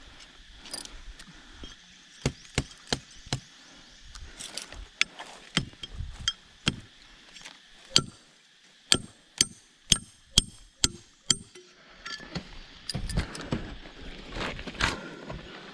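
A series of sharp knocks, coming at times about two a second with short pauses, the loudest strokes near the middle, followed by a stretch of rougher rustling and scraping.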